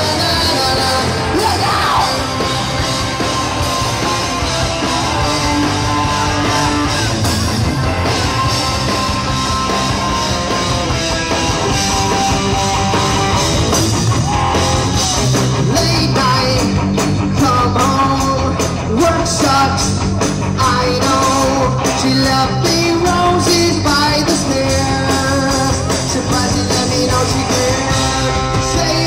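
Live rock band playing loud on stage: electric guitars and a lead singer, running steadily.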